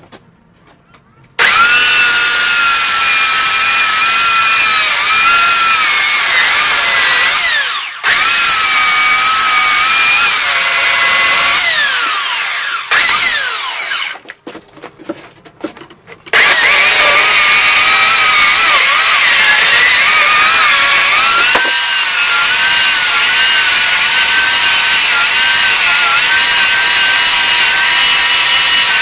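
Handheld electric sander running on a wood slab with a steady high whine, starting about a second and a half in. It dips briefly, then winds down and stops for a few seconds near the middle before running again steadily.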